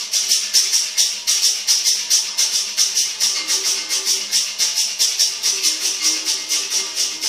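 Berimbau played with a stick on its wire, with the caxixi rattle shaking on each stroke in a steady rhythm of about four or five strokes a second. From about halfway the note alternates between two pitches.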